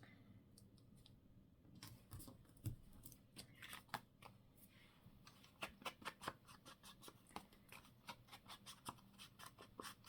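Scissors snipping paper or card: a run of short, sharp snips starting about two seconds in, coming several a second in the second half.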